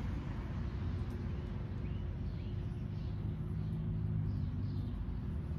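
Steady low rumble like a distant engine, with a drone that grows stronger about three seconds in, and a few faint high chirps of a bird.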